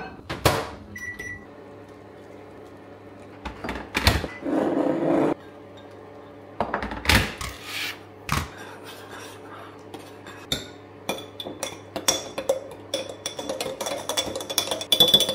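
Preparing a drink at a kitchen counter: a metal spoon clinks and scrapes as it stirs in a ceramic bowl and a glass mason jar, with a few separate knocks of things set down on the countertop. About four seconds in there is roughly a second of pouring into the jar. From about ten seconds the stirring becomes a fast run of clinks with a thin high ringing.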